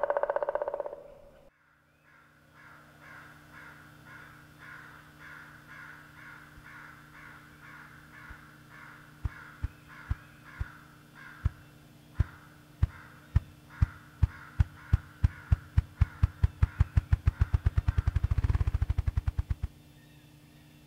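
Male ruffed grouse drumming: low, hollow thumps from its wingbeats, slow at first, then speeding up steadily until they run together into a short whir and stop. This is the male's spring display, drumming from a log. Behind it, a call repeats two to three times a second through the first half.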